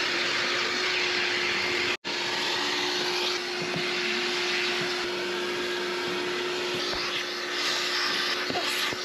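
Vacuum cleaner running steadily with a constant hum, its hose nozzle sucking dirt from a car's carpet and interior trim. The sound breaks off for an instant about two seconds in.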